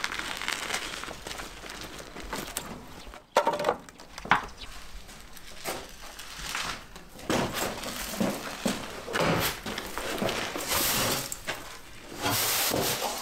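Knocks and scraping from building work in a small room. There are two sharp knocks about three and a half and four and a half seconds in, followed by uneven bursts of noise, the longest near the end.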